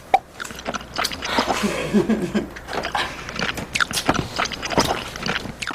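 A rapid jumble of spliced-together sound effects: a dense string of short clicks and smacks, with a few brief pitched squeaks about two seconds in.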